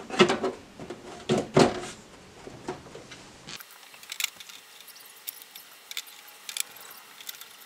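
Sheet-metal bottom cover of a 3D printer being set back onto its base, knocking and scraping loudly twice in the first two seconds. After that come scattered small metallic clicks and taps as the panel's screws are handled at a corner.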